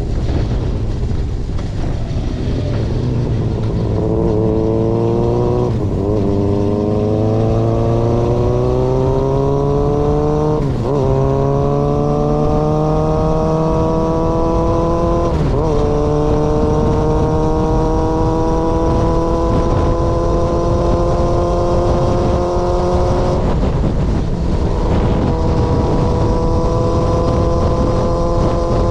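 Yamaha XJR400's inline-four through a straight-pipe exhaust, pulling up through the gears: the pitch climbs, drops sharply at each of four upshifts, and holds steady at cruise after the last one near the end. Wind noise rumbles underneath.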